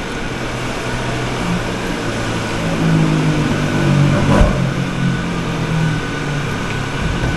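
A motor vehicle engine running, getting louder toward the middle and stepping up and down in pitch, with a single thump about four and a half seconds in.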